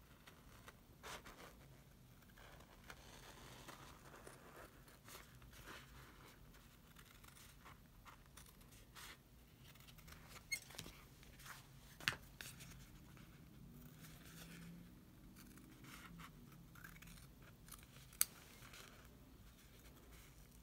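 Scissors cutting through a sheet of faux leather, a faint run of snips with three sharper clicks from the blades, the loudest near the end.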